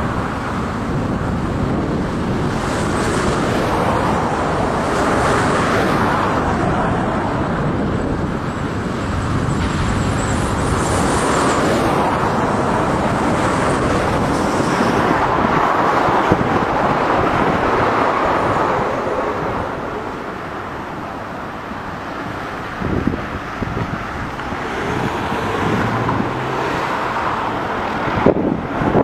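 Highway traffic noise: cars passing in a steady stream, swelling and fading as each one goes by.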